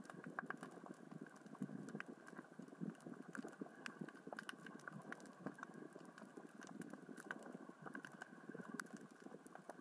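Underwater sound of small rocks rolling and knocking along the sea floor in the current: a dense, irregular crackle of small clicks over a steady low wash of water noise.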